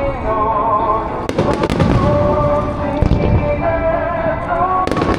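A fireworks display: aerial shells going off in a run of sharp bangs, four of them standing out, over a continuous low rumble of booms, with music playing alongside.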